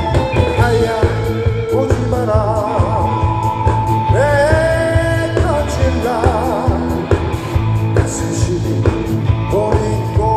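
Live rock band playing through a PA: a male vocalist singing held notes with wide vibrato over electric guitars, bass and a steady drum beat.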